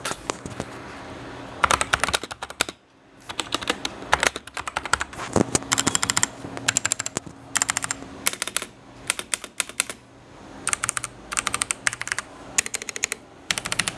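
Kreo Hive 98 mechanical keyboard with Outemu brown switches being typed on in quick runs of keystrokes, with short pauses between the runs.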